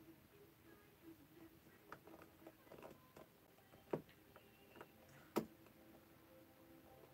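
Faint ticks and clicks of a small screwdriver working the coil screws on a rebuildable vape atomizer's metal deck, with two sharper clicks about four and five and a half seconds in, over a faint low hum.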